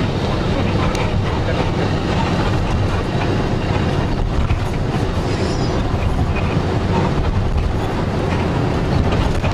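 Motorboat engine running steadily: a constant loud, low rumble with rushing noise and a few faint knocks.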